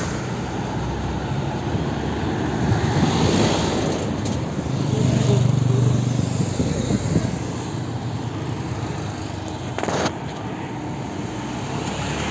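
Road traffic: vehicles driving past on a street, with one engine's low hum swelling and fading about halfway through as it passes close. A sharp click sounds near the end.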